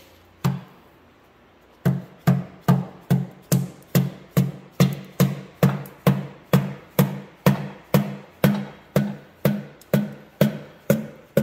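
Steady rhythmic hammer taps, a little over two a second, driving a piston and its rings through a ring compressor into a cylinder of a 1936 John Deere A two-cylinder engine. Each tap has a short low ring. One lone tap comes about half a second in, and the steady run starts about two seconds in.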